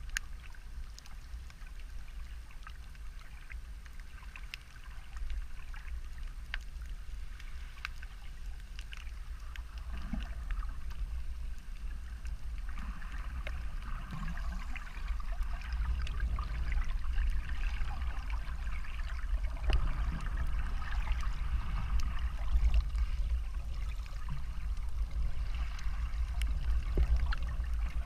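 Underwater ambience heard from below the surface: a low muffled rumble of moving water with scattered crackling clicks, growing louder about halfway through.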